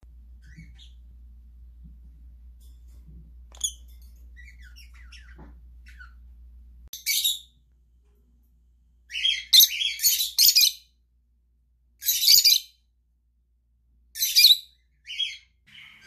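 Peach-faced lovebird calling: a few faint soft chirps at first, then loud, shrill chirps in short bunches from about seven seconds in, several in quick succession near the middle and a few more near the end.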